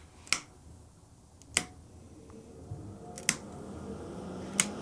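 Rocker switches on a stainless-steel electric smokehouse's control panel clicking on one after another, four sharp clicks roughly a second and a half apart. From about halfway through, a steady hum from the smokehouse rises as it starts running.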